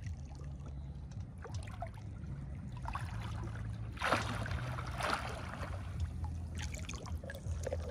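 Shallow field water splashing and sloshing as someone wades and gropes through it by hand, with two louder splashes about four and five seconds in, over a low steady rumble.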